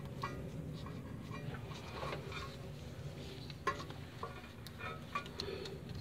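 Faint, scattered metallic clinks and light scrapes of a 2000 Acura EL's front brake caliper being worked off its rotor by gloved hands, with a couple of sharper clicks later on.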